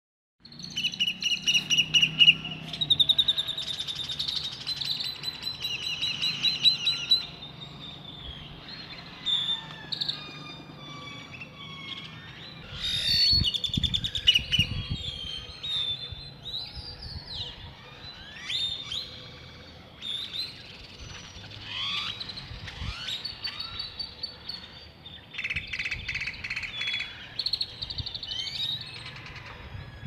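Several wild birds calling at once: fast runs of repeated high chirping notes for the first seven seconds or so, then a looser mix of overlapping chirps and whistles.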